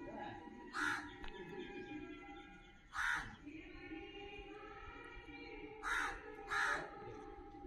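A crow cawing four times: single harsh caws about a second in and three seconds in, then two close together near the end.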